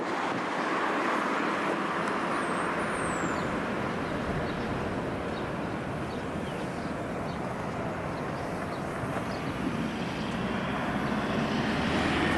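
Steady rushing outdoor noise of wind on the microphone and road traffic, swelling slightly near the end, with a couple of faint high chirps about two to three seconds in.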